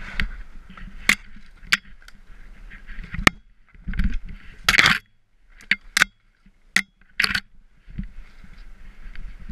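Skis sliding and hissing through powder snow, with a scatter of sharp clicks and knocks and two louder swooshes about four and five seconds in, then a brief lull.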